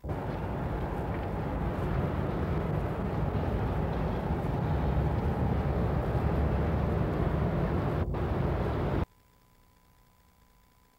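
Street traffic noise: a steady rumble of passing cars and buses that cuts off abruptly about nine seconds in.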